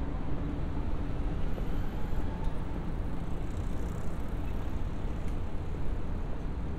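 Steady low rumble of distant city road traffic on a quiet night street, with no distinct events.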